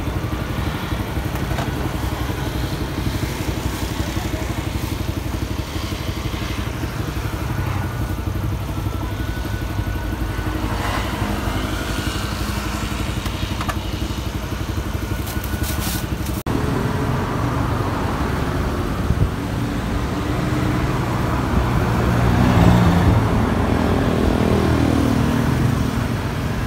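Street traffic with motorcycle engines running, one passing louder and rising in pitch about three-quarters of the way through.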